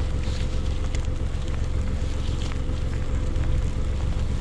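Steady low wind rumble on the microphone, with a few faint scattered crackles.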